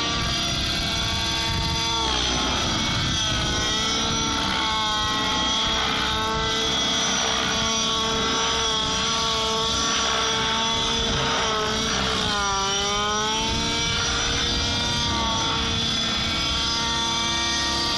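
Petrol-engined T-Rex 700 RC helicopter running in flight, its engine and rotor note rising and falling in pitch, with a marked dip and recovery about twelve seconds in.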